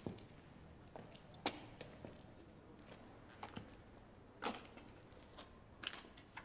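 A few faint, scattered knocks and clicks over quiet room tone. The sharpest come about a second and a half in and about four and a half seconds in.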